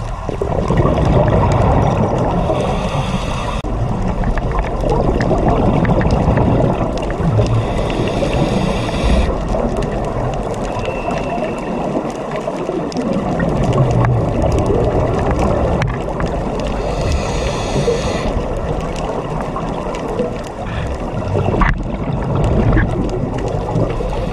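A scuba diver's regulator breathing, heard underwater. Each inhalation is a hiss that comes every several seconds, and between them runs a steady low rumble and gurgle of exhaled bubbles and water.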